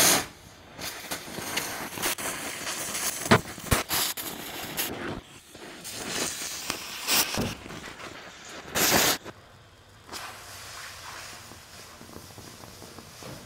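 Victor oxy-acetylene cutting torch hissing in uneven bursts as it cuts the steel container wall, with a few sharp pops and crackles. After about ten seconds it stops and only a quieter steady background is left.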